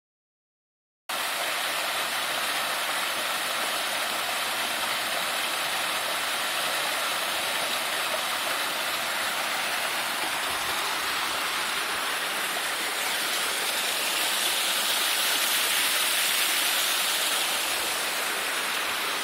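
A forest stream's water running, a steady hiss that starts about a second in and swells slightly later on.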